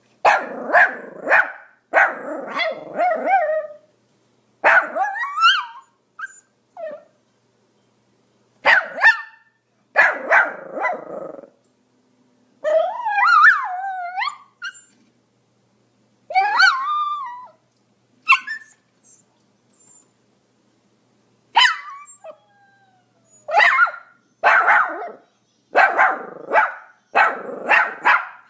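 Pomeranian barking in clusters of sharp, high-pitched barks separated by short silences, with a couple of longer, wavering whining yelps around the middle.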